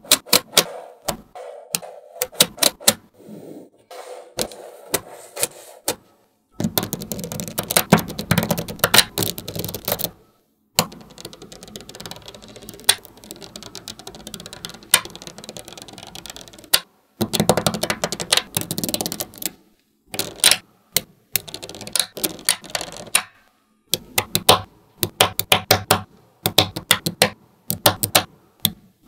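Small magnetic balls clicking and snapping together as they are handled, in quick runs of sharp ticks. Twice, dense rattling as many balls clatter together at once.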